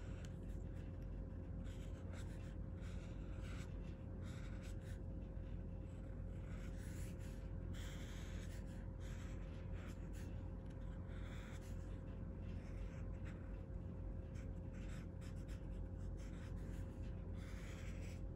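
Marker pen strokes scratching across sketchbook paper, in short irregular strokes, over a steady low hum.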